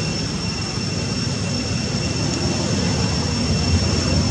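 Steady outdoor background noise: an even rumbling hiss, with two thin, steady high-pitched tones held above it.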